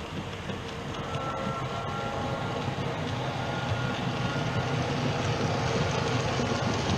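Model train running on the layout's track, a steady rumbling rattle of wheels on rail that grows louder as it comes closer.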